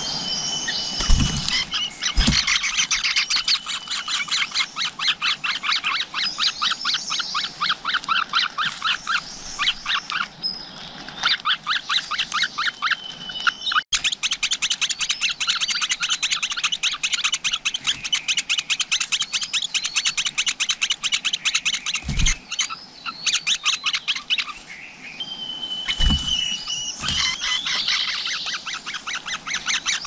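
Nestling birds begging: a loud, nearly unbroken run of rapid, harsh cheeps, with a few drawn-out whistled notes and four brief low thumps.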